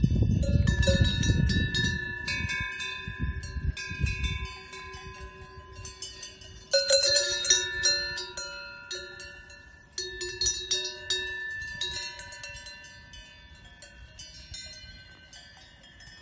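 Cowbells on grazing cows clanking irregularly, each strike leaving a lingering metallic ring, with louder clusters about seven and ten seconds in, then fading. A low rumbling noise sits under the bells for the first few seconds.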